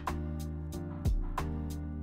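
Background music: sustained chords over a regular drum beat.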